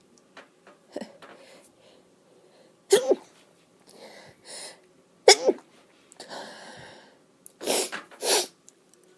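A woman sneezing, induced sneezes: two sharp sneezes about three and five seconds in, then breathing and two more noisy bursts near the end.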